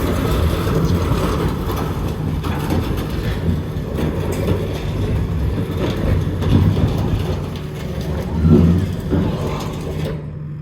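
Skid steer engine running steadily, with occasional knocks and clanks; the sound changes abruptly near the end.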